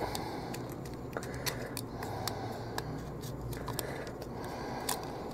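Scattered faint clicks and light scrapes of hands handling plastic packaging as a micro RC helicopter is worked free of its box, over a low steady hum.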